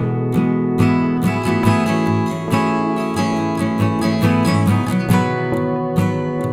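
Background music: a strummed acoustic guitar track with a steady rhythm.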